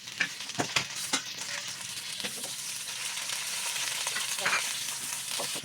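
Food sizzling as it fries in a pan, a steady hiss broken by scattered scrapes and knocks as it is stirred.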